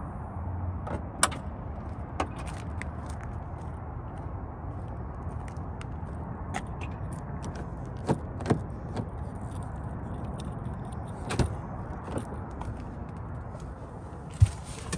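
Car door and interior handling noises on an Audi: scattered sharp clicks and knocks over a steady low rumble as the driver's door is opened and someone gets into the seat.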